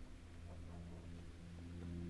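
Quiet river ambience on a kayak: a steady low hum with a few faint drips of water.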